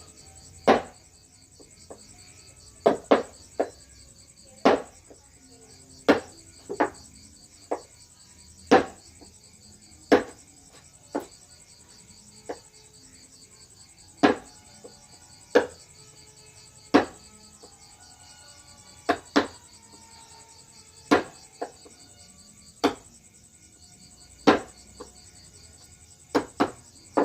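Mallet striking a wood-carving chisel: sharp knocks every second or two, sometimes in quick pairs, with a steady high insect trill behind.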